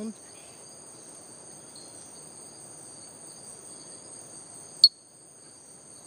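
A Diasporus bell frog gives a single short, sharp, high-pitched call about five seconds in. It sits over a steady high-pitched insect chorus that holds several constant tones throughout.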